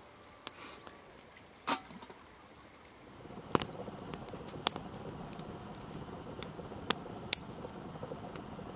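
Wood fire burning, with scattered sharp crackles and pops from the logs over a steady hiss. The fire sound comes up about three seconds in; before that it is quieter, with a single knock.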